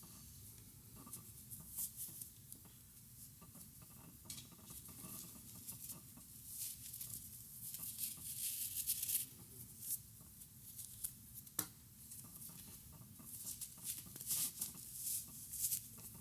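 Crochet hook working cotton yarn: faint scratchy rustles of yarn drawn through stitches, with small clicks, coming in irregular bursts and one sharper click a little past the middle.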